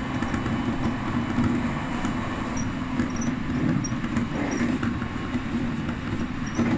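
Electric train running along the track, heard from inside the front car: a steady rumble of wheels on rail with a few faint clicks.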